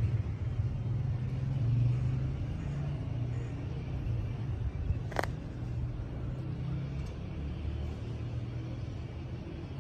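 Steady low rumble of vehicle noise, with a single short sharp click about five seconds in.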